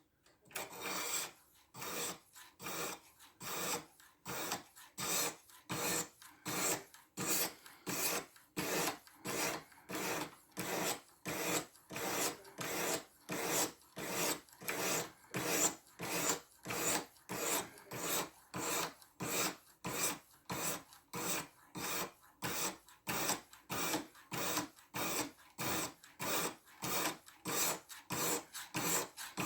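Diamond sharpening stone on a guided sharpener scraping along a 14C28N steel knife edge in steady, rhythmic strokes, about two a second.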